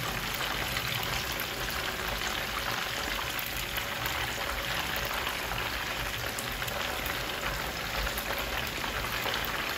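Croaker fish pieces, put in from frozen, frying in shallow oil over low heat: a steady bubbling sizzle with fine crackling. The melting ice on the fish is what keeps the oil bubbling.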